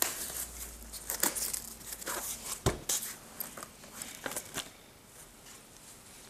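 Gloved hands opening the hinged plastic lid of a Cardiac Science Powerheart G3 AED: a run of clicks, knocks and rustling, the sharpest click about two and a half seconds in. The handling dies down to a faint rustle over the last second or so.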